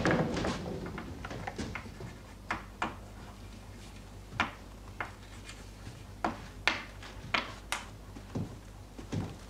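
A dozen or so sharp knocks and clicks at irregular intervals over a faint low hum.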